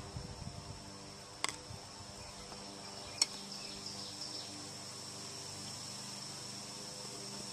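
Two sharp metal clinks, about a second and a half and three seconds in, as the metal parts basket is lifted by its handle out of a gallon can of carburetor-cleaner dip. Under them runs a faint, steady, high insect trill.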